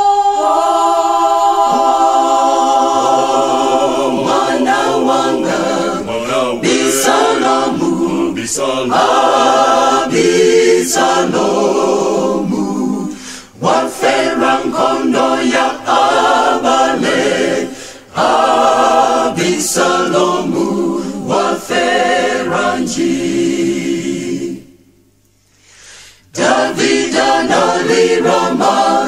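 Choir singing a cappella in phrases, with brief breaks between them. Near the end there is a pause of about a second and a half, then the singing resumes.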